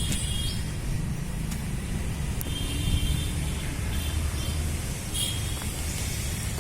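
Steady low outdoor rumble, with a few short, high bird chirps around the middle and near the end.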